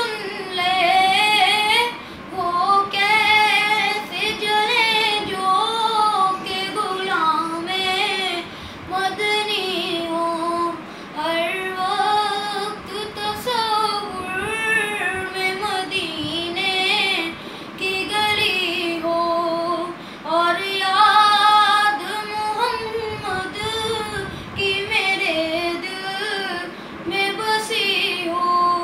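A boy singing an Urdu naat unaccompanied, in a high, unbroken child's voice. The melody is ornamented and wavering, sung in phrases of a couple of seconds with short breaks for breath.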